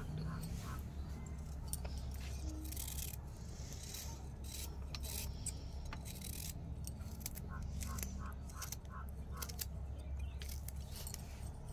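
Small kitchen knife slicing ivy gourd (kundru) held in the hand: a run of short, light scrapes and snicks.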